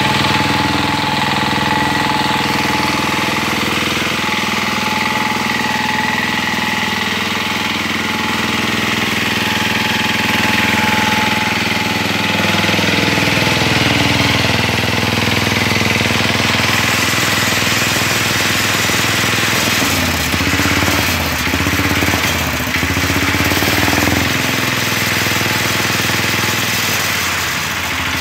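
Small diesel engine of a lifted Wheel Horse garden tractor running steadily, freshly cold-started. About twenty seconds in, its pitch rises and falls a few times.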